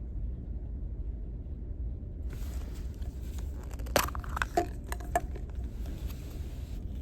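Steady low hum of the ferry's engines. From about two seconds in there is light rustling handling noise, with a few sharp clicks a little past the middle.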